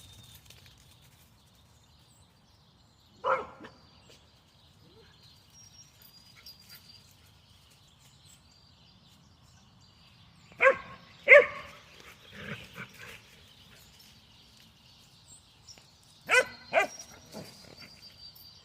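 A dog barking in short, separate barks: a single bark, then a quick pair followed by a few softer ones, and another quick pair near the end.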